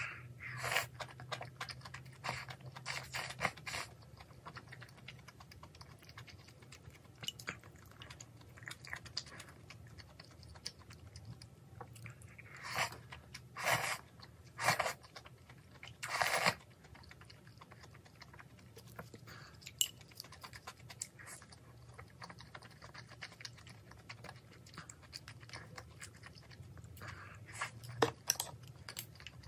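Close-up eating sounds: slurping ramen noodles from a bowl of kimchi stew, then three or four loud sips and slurps of the broth about halfway. Soft chewing and mouth clicks fill the gaps between them.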